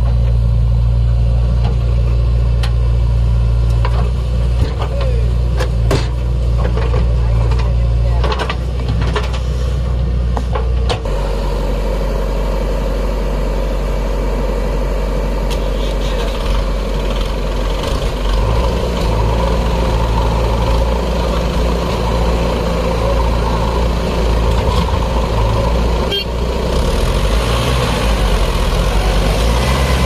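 Heavy diesel engines running, first a JCB 3DX backhoe loader working its digging arm with a steady low drone and several sharp knocks. About eleven seconds in the sound changes abruptly to a Mahindra tractor's diesel engine running alongside the JCB.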